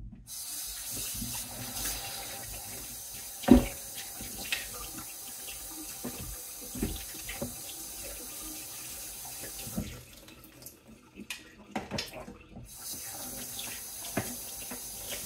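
Kitchen tap running onto a plastic juicer part as it is rinsed in the sink, a steady splashing stream. The water stops about two-thirds of the way in and comes back about three seconds later. A few knocks are heard, with one sharp clunk a few seconds in.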